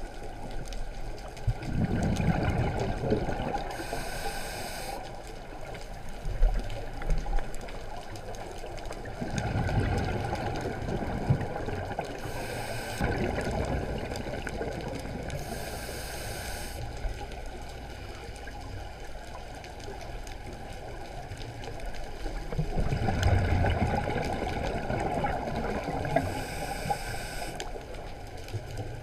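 Scuba diver breathing through a regulator, recorded underwater: about four slow breaths, each a hissing inhale through the regulator and a low burble of exhaled bubbles.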